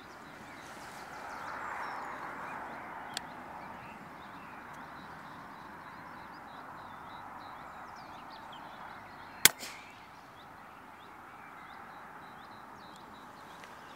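A single sharp shot from a moderated Daystate Mk4 pre-charged pneumatic air rifle about two-thirds of the way in, followed a moment later by a fainter knock. Birds call faintly in the background.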